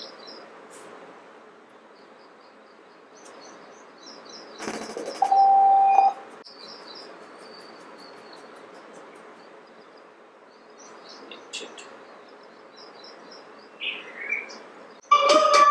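Small birds chirping over a steady background hiss. About five seconds in comes a loud burst of clicks, then a steady electronic beep lasting about a second. Near the end, music starts playing from a small Bluetooth speaker with two 3-watt drivers.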